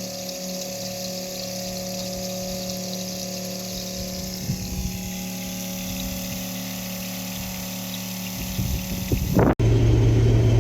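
Steady machine hum with several held tones. After a sudden cut about 9.5 s in, a louder, lower engine hum takes over.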